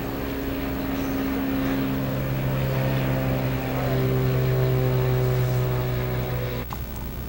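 Engine of a cruise ship's tender boat droning as it passes close, a steady low hum that grows louder toward the middle and then eases off, its pitch dropping a little as it goes by.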